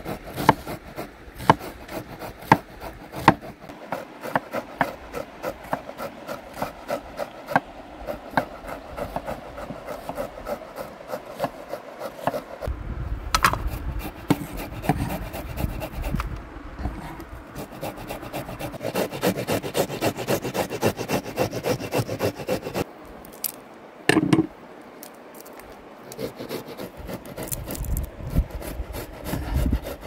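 Knife slicing onions on a wooden cutting board, with rapid sharp taps of the blade on the board, several a second. Between the taps a tomato is rasped on a box grater, and there is an occasional heavier thump.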